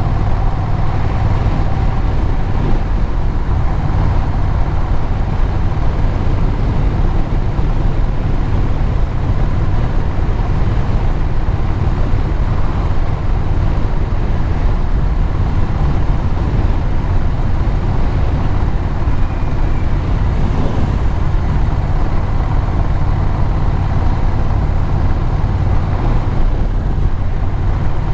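Engine and road noise of a vehicle under way: a steady low engine drone with tyre and wind noise, holding even throughout.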